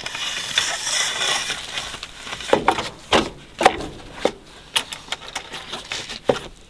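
Awning poles and curved spreader bars being fitted: a rustling scrape for about the first two seconds, then irregular sharp clicks and knocks as the bars are handled and seated.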